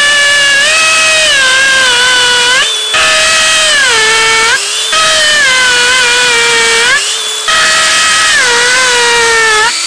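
DeWalt DCD996 brushless hammer drill boring a pilot hole into a concrete block with a new masonry bit, its loud motor whine sagging in pitch under load. The whine eases off briefly three times and drops away near the end as the hole is finished.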